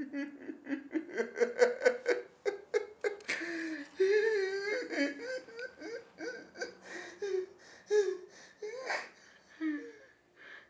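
A man laughing in rapid, even bursts for about three seconds, then in longer wavering cries and more widely spaced bursts, the laughter strained and close to sobbing.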